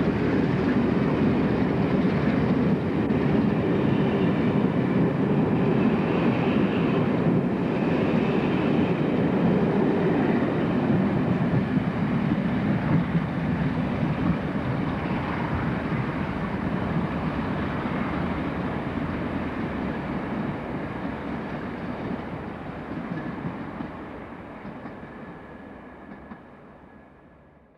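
Steam-hauled passenger train, Southern locomotive 34105 'Swanage' with its coaches, running away along the track with steady heavy rumbling. It fades away over the last several seconds.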